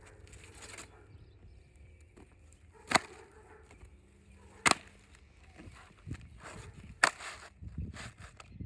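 Three sharp knocks, about two seconds apart, over a low background.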